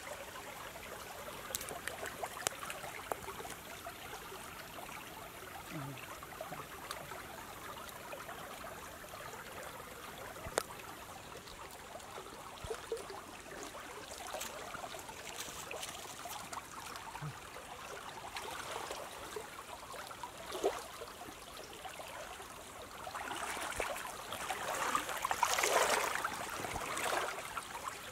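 Shallow stream water running steadily, with scattered small ticks and rustles. Over the last five seconds the water grows louder into a splashing rush.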